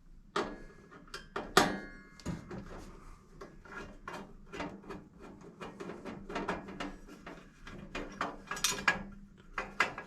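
A screwdriver working out the screw of a range hood's sheet-metal electrical box cover: irregular metallic clicks, taps and light rattles, with a sharper clack about a second and a half in.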